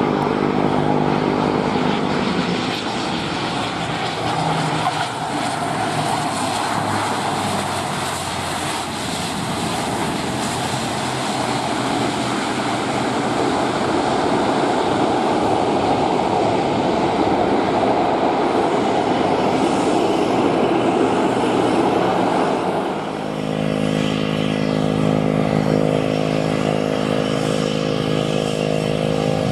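Citilink ATR 72-600 turboprop airliner landing: its twin Pratt & Whitney PW127 turboprops and propellers hum with steady pitched tones at touchdown, then give a broad rushing noise through the rollout. About 23 s in the noise dips and gives way to a steady humming drone with several pitched tones as the aircraft slows to taxi speed.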